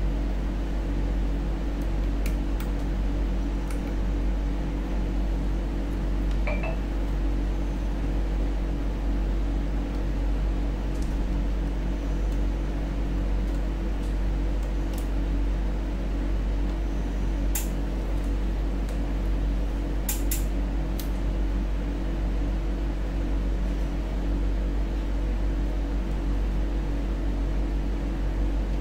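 A steady low hum throughout, with a few faint light clicks of small parts being handled as laptop flex-cable connectors are fitted back in.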